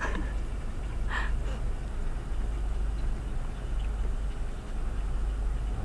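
Newly installed washing machine running with a steady low hum and rumble, with a short click about a second in.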